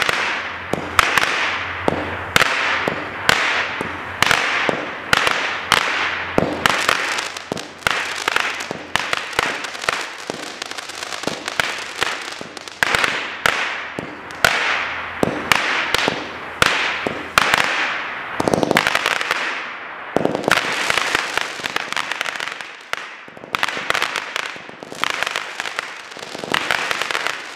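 Fireworks Fiesta 200 g consumer fireworks cake firing shot after shot, about one or two a second. Each shot is a sharp report followed by a fading hiss.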